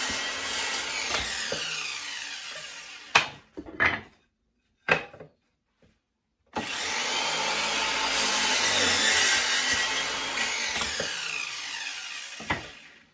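Vonhaus 20V Max cordless mitre saw cutting wood, twice. The first cut winds down over the first three seconds, followed by a few knocks. About six and a half seconds in the motor spins up again for a second cut, which it makes smoothly, running about six seconds before the blade winds down, with a knock at the end.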